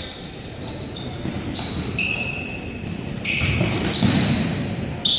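Basketball court sounds: sneakers squeaking on the gym floor in short, high chirps several times, over a ball bouncing and a low crowd murmur.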